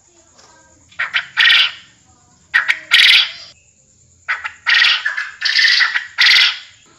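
Quail call ('puyuh kebon') played as a lure, repeating about every one and a half seconds. Each call is a couple of short clipped notes followed by a longer, rougher note; near the end the long note comes three times in quick succession.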